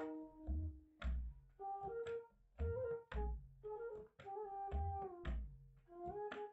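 Background music: a melody of held pitched notes over a regular beat of low drum thumps.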